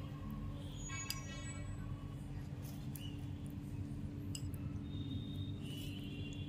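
A metal spoon clinks once against a bowl about a second in and rings briefly, over a steady low hum; a few faint ticks follow.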